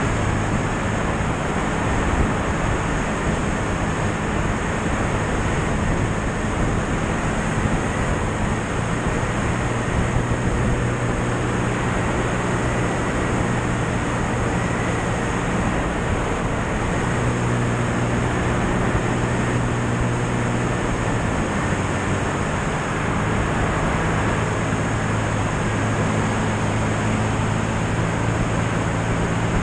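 Light aircraft in flight: a steady loud rush of airflow with the drone of its piston engine underneath, the engine's tone shifting slightly a few times.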